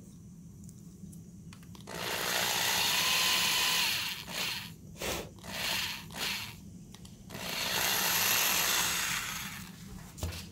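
Cordless drill with an 11/64-inch bit boring a binding screw hole into a ski's plastic top sheet: one long run, a few short bursts, then another long run. A soft knock near the end.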